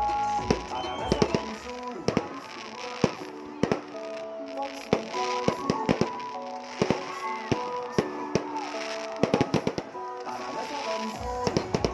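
Fireworks bursting in an irregular series of sharp bangs and crackles, with music playing underneath.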